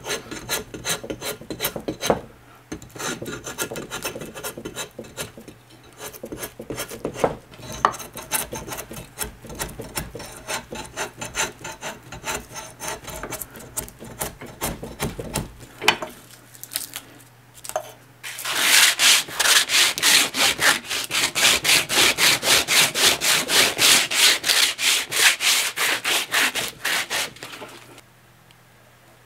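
Curved drawknife shaving a wooden log clamped in a vise: repeated scraping strokes, first uneven, then after a short pause a loud, fast, steady run of strokes in the second half. The scraping stops about a second before the end.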